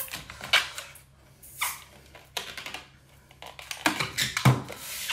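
Inflated latex modelling balloon squeaking and rubbing under the hands in a few short, separate bursts as it is handled and stretched.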